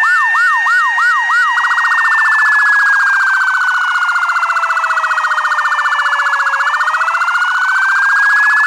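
Electronic emergency-vehicle siren. It starts on a fast yelp of about three sweeps a second, then about one and a half seconds in switches to a much faster warbling trill. Under the trill a slower tone falls and rises again.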